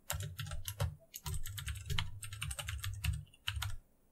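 Computer keyboard typing: a quick, uneven run of keystrokes with a brief pause about a second in, stopping shortly before the end.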